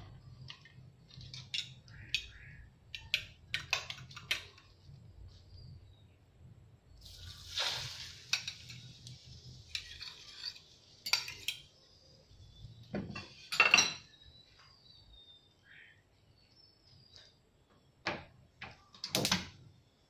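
Kitchen utensils clinking and knocking against a dish and a stainless steel frying pan, with the loudest knocks near the middle and near the end. About seven seconds in there is a burst of sizzling as beaten egg goes into the hot oil.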